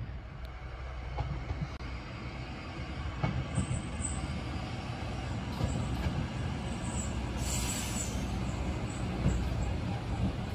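KiHa 37100 diesel railcar pulling into a station: a steady low rumble of the engine and wheels, with high-pitched wheel squeals coming and going from about a third of the way in and a short louder burst of high noise near three-quarters through.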